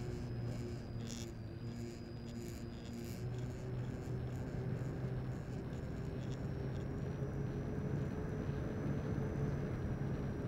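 Electric motor of a radio-controlled model aircraft in flight, heard from a camera aboard the model: a steady thin high whine that steps up in pitch about six seconds in, over a steady drone and rushing air.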